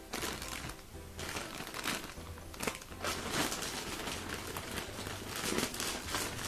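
Plastic poly mailer bag crinkling in repeated bursts as it is gripped and worked open by hand, over background music.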